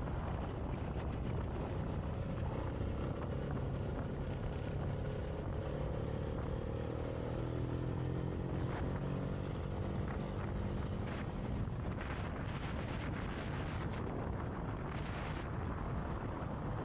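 Motobi Evo 200 motorcycle engine running at a steady cruise, its pitch drifting a little around the middle, with wind rushing over the microphone and some buffeting in the last few seconds.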